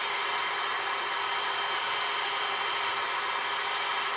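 Hand-held hair dryer running steadily with a constant high whine over its airflow, blowing on freshly applied wig lace adhesive to dry it.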